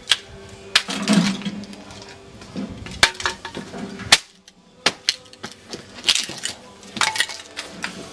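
Irregular clinks and knocks, about a dozen separate strikes, of wood kindling and the sheet-steel door of a 20 mm ammo-can wood stove being handled as its firebox is loaded for lighting.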